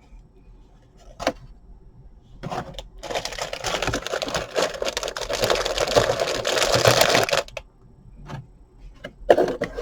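Model kit packaging being handled: a few light knocks, then about four seconds of dense crinkling and rustling, then a couple more knocks near the end.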